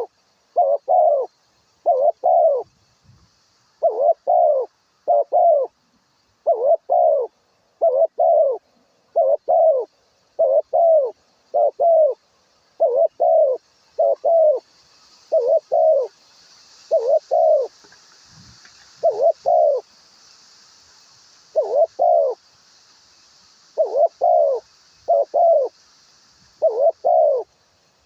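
Dove cooing: a long string of short, low double coos, about one a second, broken by a few short pauses.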